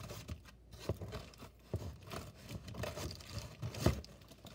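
Scissors cutting into a corrugated cardboard box and its packing tape: a series of irregular snips and crunches, the loudest one a little before the end.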